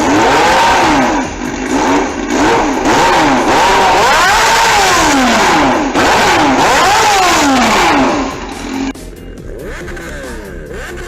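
Honda motorcycle engine revved hard over and over, its pitch sweeping up and falling back again and again. It stops suddenly about nine seconds in.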